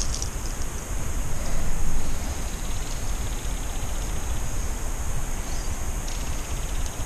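Wind buffeting the microphone: a steady low rumble with a hiss over it, swelling briefly about two seconds in.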